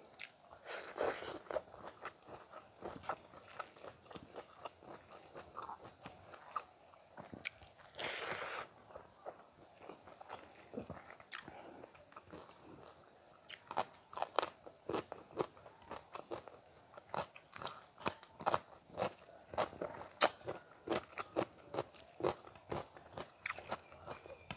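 Close-miked chewing and crunching as a person eats rice and curry by hand and bites into a raw green chilli, with many quick wet mouth clicks. Two longer noisy bursts come about a second in and around eight seconds.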